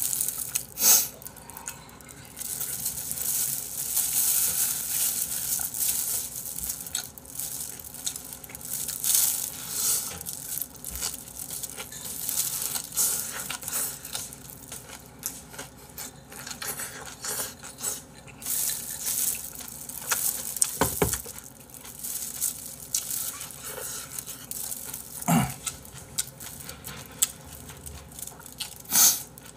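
Close, wet eating sounds of someone chewing and sucking on soft-boned chicken feet in spicy broth: lip smacks, slurps and squelching, with small clicks and a few sharper knocks.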